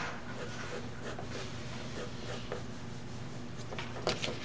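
Graphite pencil drawing on paper: steady, light scratching as lines are sketched.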